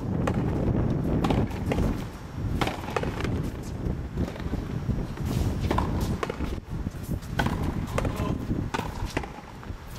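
Frontenis rally: the ball is struck by rackets and slaps against the fronton wall, about a dozen sharp smacks at irregular intervals over a steady low rumble.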